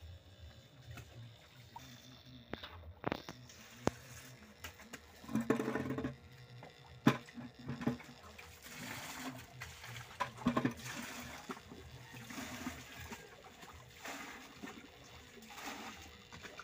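Water trickling and splashing in a small backyard fish pond, with a few sharp clicks and knocks scattered through it.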